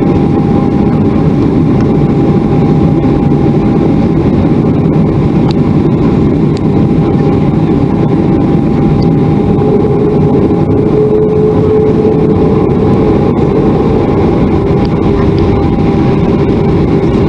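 Cabin sound of a Boeing 737-400 on the ground, its CFM56 engines running steadily at low power: a dense rumble with a steady whine over it, and a second, lower whine that comes in about ten seconds in.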